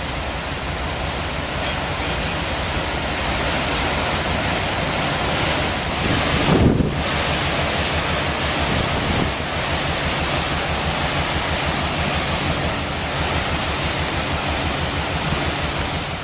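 Steady rushing of a ferry's churning propeller wash, with wind buffeting the microphone and a short gust about six and a half seconds in.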